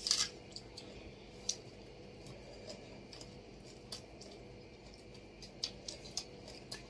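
Close-up eating sounds: a short, sharp bite into a chicken leg right at the start, then scattered faint mouth clicks and lip smacks of chewing, over a faint steady hum.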